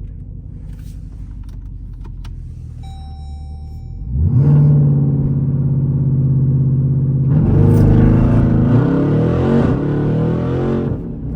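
SRT Jeep's V8 idling, then about four seconds in revved up hard for a launch from a standstill on a wet street and held at high revs, getting louder with a rushing hiss from about seven seconds in before easing off near the end.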